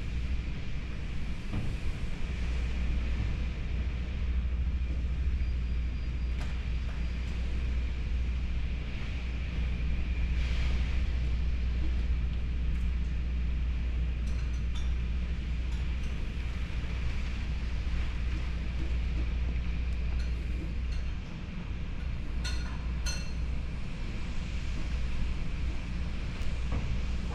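Tropical-storm wind gusting and rain pouring, heard as a steady low rumble of wind on the microphone with a faint high whistle over it. A few light ticks come in the second half.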